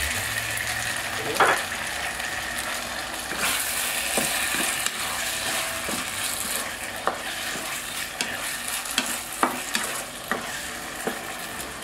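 Chicken, bok choy and rice noodles sizzling in a hot wok, the sauce water just added, while a wooden spatula stirs fast and clicks against the pan now and then. The sizzle grows louder for a few seconds near the middle.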